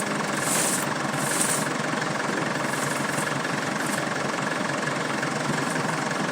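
Engine idling steadily, with two short hisses about half a second and a second and a half in.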